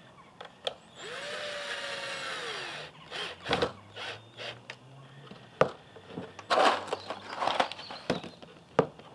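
Cordless drill running for about two seconds, boring into a plywood board, its pitch dropping as it stops. After it come a series of sharp knocks and short clattering bursts, louder than the drill, as the drill and board are handled.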